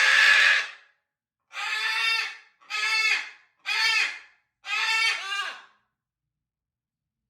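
Macaws squawking: one harsh, noisy screech, then four shorter pitched squawks, each under a second, coming about once a second.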